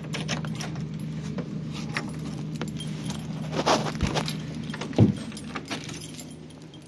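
A bunch of keys jangling as a key is worked in a door lock, with many small clicks and two louder clunks from the lock and door, one after about three and a half seconds and one about five seconds in. A steady low engine hum from the road work runs underneath and fades near the end.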